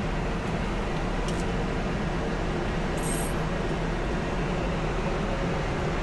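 Steady mechanical running noise with a low hum, unchanged throughout, and a brief high hiss about three seconds in.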